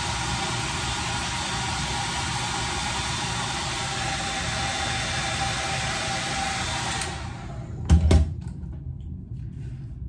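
Handheld hair dryer blowing steadily, then switched off about seven seconds in and winding down, followed by a quick pair of loud knocks.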